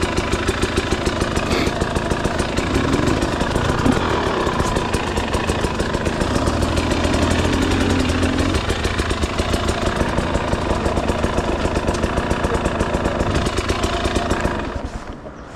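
Two-stroke single-cylinder engine of a KTM 300 EXC TBI enduro dirt bike running at low revs with a rapid, even firing beat. The sound falls away near the end.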